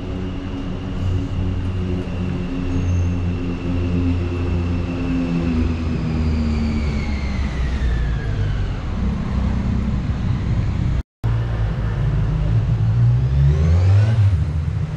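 Street traffic: cars drive close by with a steady engine hum, and one passing vehicle's pitch falls as it goes past. Sound briefly drops out about two-thirds of the way through. Near the end another vehicle accelerates with rising pitch.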